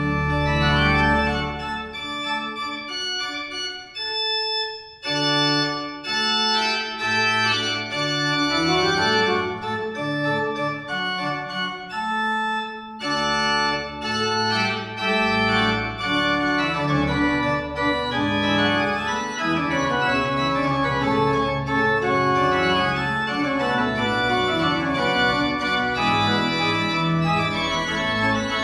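Pipe organ playing sustained chords over a moving bass line, with short breaks about four seconds in and again near thirteen seconds.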